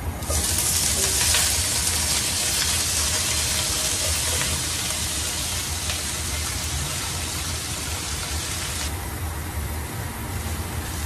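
Chopped napa cabbage hitting hot oil in a frying pan and sizzling loudly as it is stirred with a spatula; the sizzle cuts off sharply about nine seconds in.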